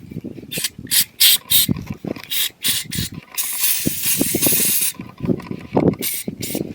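Hand tools clicking and ratcheting while a quad's fuel pump assembly is taken apart for cleaning, the pump having failed again. About three seconds in there is a steady hiss of about a second and a half, then more clicks.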